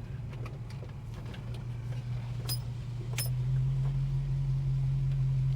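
Holden HK's engine running at low speed while the car creeps along, its hum growing louder about three and a half seconds in as it takes more throttle. Two sharp clicks come just before the rise.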